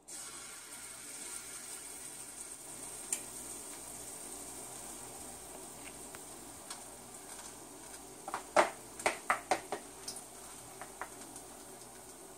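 Spoonfuls of batter for Barbadian bakes (johnny cakes) sizzling steadily in hot frying oil in a pan. About two-thirds of the way through comes a quick run of sharp clicks, a metal spoon knocking against the pan or bowl.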